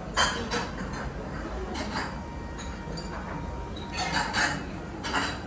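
A few short clacks and clinks of wooden serving tongs against plates and bowls, with the rustle of cabbage leaves being lifted onto a plate.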